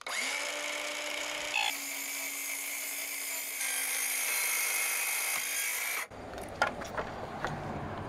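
DeWalt DCS373 cordless metal-cutting circular saw with a carbide blade running through a fridge's galvanized sheet-metal skin at a slow feed. It runs steadily, its pitch dipping slightly under load a couple of seconds in and the hiss of the cut growing brighter, then cuts off abruptly about six seconds in.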